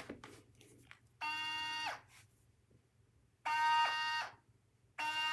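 Lacing motors of Nike Adapt Huarache self-lacing sneakers whirring as they pull the laces tight around the feet: three spells of a steady high whine, the first two under a second each and dropping in pitch as they cut off, the third starting about five seconds in. A light click comes right at the start.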